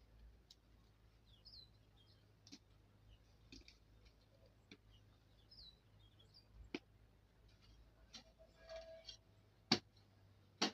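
Irregular sharp clicks and knocks, a few seconds apart, the two loudest near the end, with faint high bird chirps between them.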